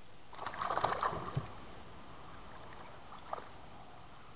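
A hooked largemouth bass splashing and thrashing at the water's surface for about a second, being reeled in beside a small boat, followed by calmer water and one small knock near the end.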